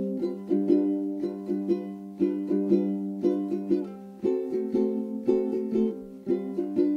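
Background music: a light tune picked on a plucked string instrument, notes coming in a steady, even rhythm.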